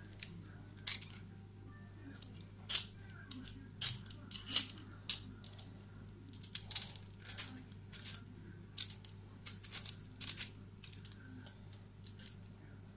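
Multi-purpose hand peeler scraping the hard rind off a pumpkin in short, irregular strokes, each a brief rasping scrape.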